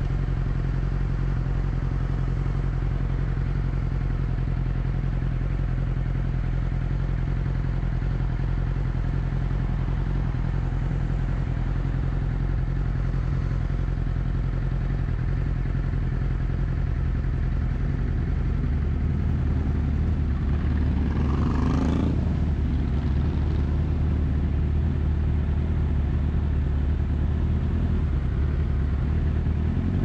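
Sport motorcycle engine running steadily at cruise, with a short rising surge about two-thirds of the way in.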